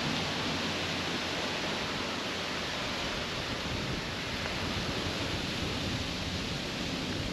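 Steady rushing noise spread evenly from low to high, with an unsteady rumble underneath.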